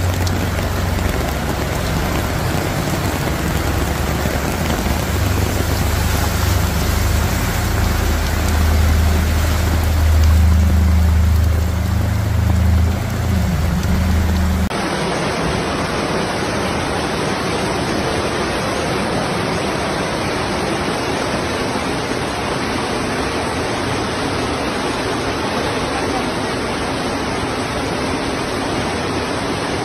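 Rushing floodwater with heavy rain, a loud steady hiss. For about the first half a strong low rumble runs beneath it; then it cuts to another recording with only the rush of water.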